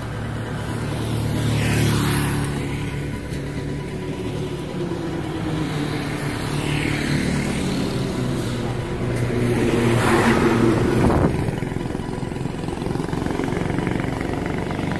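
Motorcycles and other road vehicles passing by, engine noise swelling and fading as each goes past. The loudest passes come about two seconds in and around ten seconds in.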